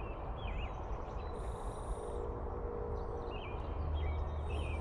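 Small birds chirping in short, quick calls near the start and again in the second half, over a steady low rumble that grows louder a little over halfway through.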